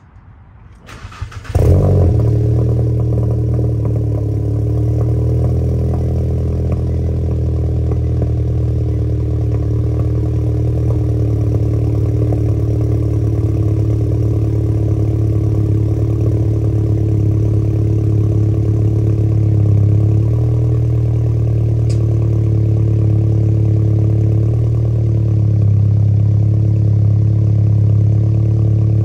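Volkswagen MK7 GTI's turbocharged 2.0-litre four-cylinder cold-starting through a titanium cat-back exhaust and high-flow catted downpipe: a brief crank about a second in, a loud flare as it catches, then a steady cold idle.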